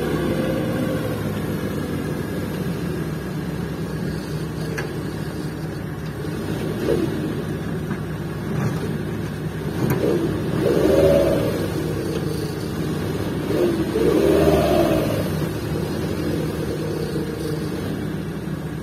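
Fully loaded dump truck's engine labouring under throttle as it tries to pull out of soft mud, revving up and back down twice, about ten and fourteen seconds in. The truck is not able to climb out under its own power.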